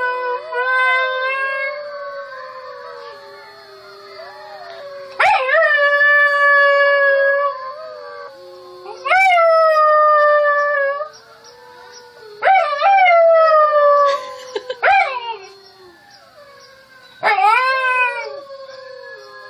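Alaskan Malamute puppy howling, about six howls that each start with a sharp upward swoop and then hold and slowly sag in pitch. Recorded wolf howls playing from a device carry on more quietly between them.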